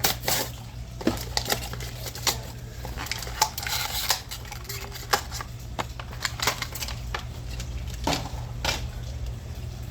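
Plastic blister packaging of a die-cast toy car being cracked open and handled: irregular clicks, snaps and crinkles.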